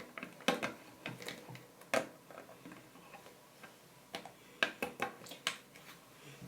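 Small plastic toy figures being handled and set down on a hard surface: light, irregular clicks and taps, about ten in all.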